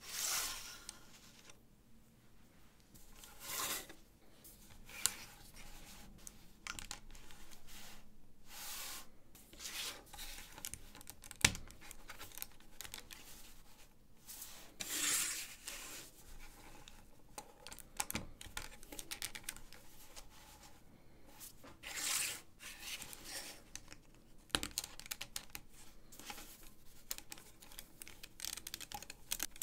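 LEGO plastic plates being handled and fitted together: rustling rubs of plastic on plastic every few seconds, with a few sharp clicks as plates snap onto studs.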